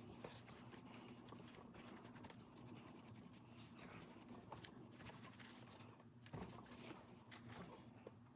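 Faint, irregular rubbing and scratching of a paper towel scrubbing a spot on the plastic back of a MacBook, over a low steady hum.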